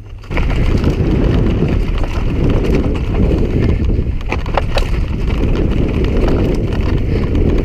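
Mountain bike riding noise on a rider-mounted camera: wind buffeting the microphone mixed with tyres rolling over loose gravel and rock, with scattered clicks and knocks from the bike. It starts abruptly a moment in as the bike gets going downhill.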